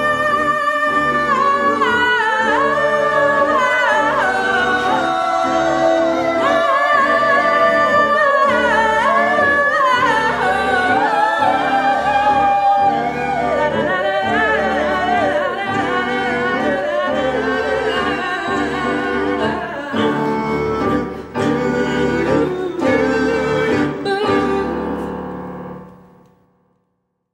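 Several voices singing to music, with sustained, gliding sung notes. It fades out near the end.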